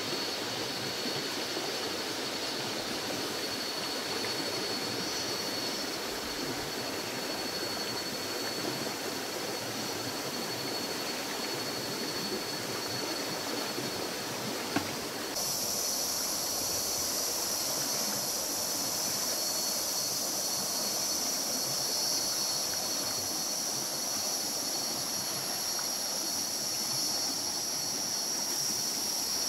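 Riverside forest ambience: a steady hiss with a continuous high-pitched insect drone over it. About halfway through a single sharp click is heard, and a louder, shriller insect drone sets in abruptly and holds.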